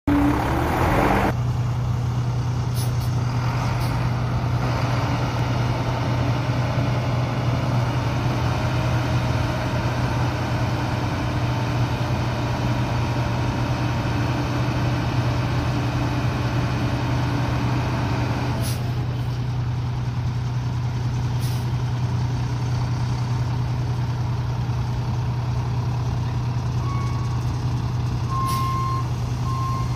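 International DT530 inline-six diesel engine of a 1998 International 4900 dump truck idling steadily after a loud burst in the first second or so. A hiss over the engine stops about two-thirds of the way in, and near the end a backup alarm starts beeping.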